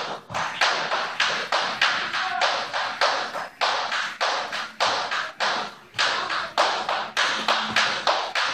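A speed jump rope slapping the gym floor in a fast, steady rhythm, about four sharp slaps a second.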